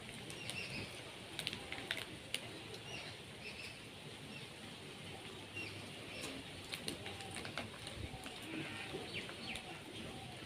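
Small birds chirping now and then, with scattered sharp clicks over a low background hiss.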